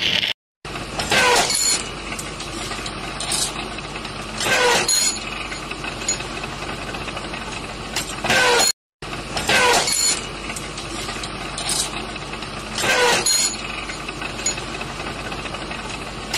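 Rebar-processing machine running with a steady mechanical noise, broken every few seconds by a short, loud, pitched screech.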